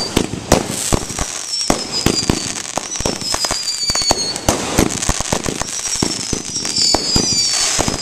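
A fast-fused board of 200-gram and 500-gram consumer firework cakes firing in quick succession: a dense, irregular run of bangs and pops, with several high whistles falling in pitch.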